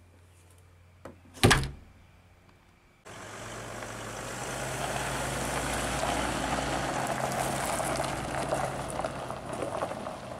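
A door shuts with a single loud thud about a second and a half in. Then, from about three seconds in, a cargo van's engine runs steadily as the van drives off, easing slightly near the end.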